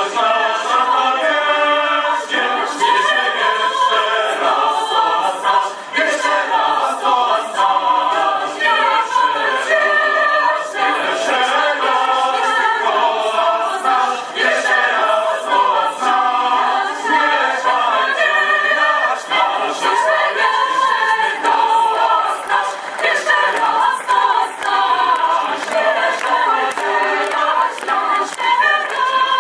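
Choir singing a cappella in several voice parts.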